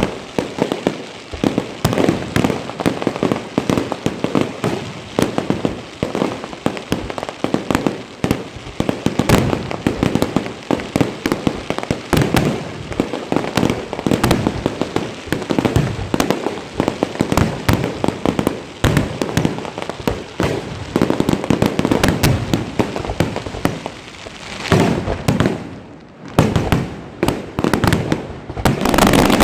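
Fireworks going off in a rapid, continuous barrage of bangs and cracks, with a short lull about three-quarters of the way through and then a few scattered bangs near the end.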